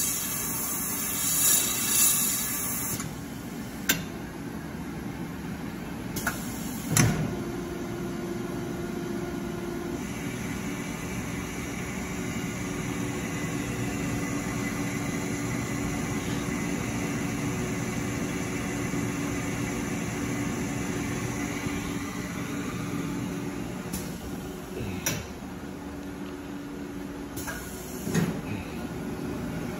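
Ultra Optics lens hard-coating machine running: a high hiss cuts off about three seconds in, leaving a steady mechanical hum that gains a low and a higher steady tone after several seconds, with a few sharp clicks and knocks, the loudest about seven seconds in.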